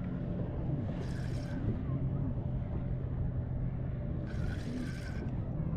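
A steady low motor drone, like an engine running at a distance, with two short hissing bursts: one about a second in and one about four seconds in.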